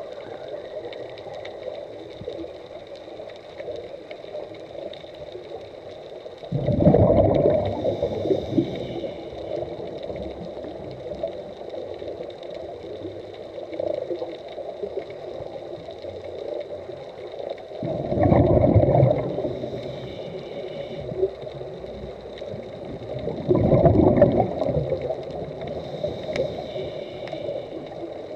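Scuba regulators' exhaled bubbles heard underwater: three loud bubbling surges, about 7, 18 and 24 seconds in, each lasting a second or two, over a steady underwater hiss with a faint high tone.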